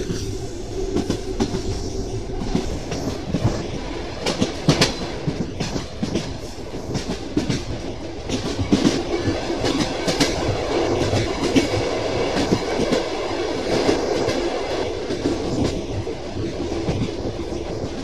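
Railway carriage wheels clattering on the track: a continuous rumble with sharp clacks coming at irregular intervals.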